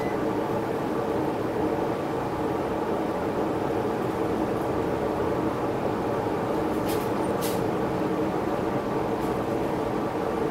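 Steady hum of a small motor, with two faint clicks about seven seconds in.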